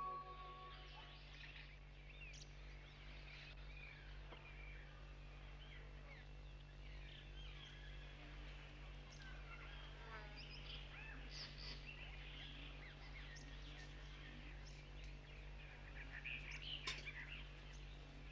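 Faint chirping of small birds, many short twittering calls scattered throughout, over a steady low hum.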